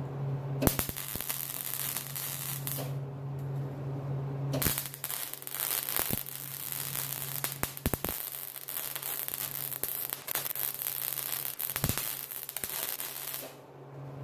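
Stick welder arc crackling and sputtering as it welds exhaust pipe, in two runs: a short one of about two seconds, then a longer one of about nine seconds. A steady hum from the welder runs underneath.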